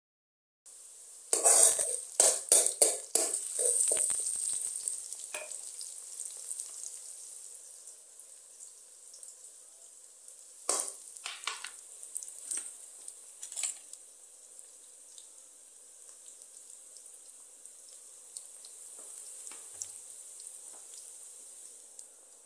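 Sliced onions sizzling steadily in hot oil in a pan. They are stirred in two bouts, with a quick run of loud scrapes and knocks against the pan about a second in and fewer strokes again around the middle.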